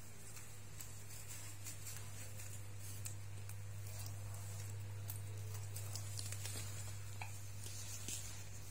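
Faint scattered clicks and rustles of small monkeys handling and eating food, over a steady low hum.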